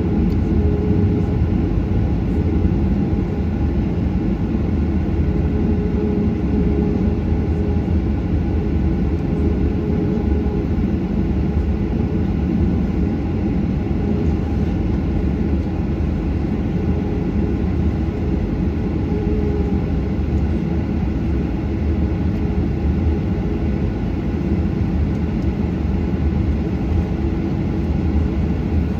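Steady low rumble of a Boeing 737's jet engines and airflow heard inside the passenger cabin, with a faint steady hum.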